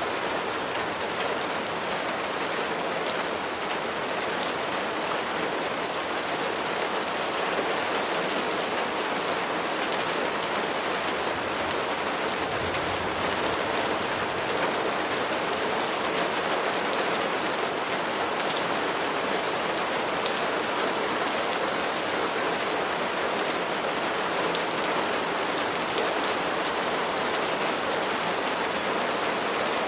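Steady rain falling: a dense, even hiss of raindrops, with single drops ticking through it.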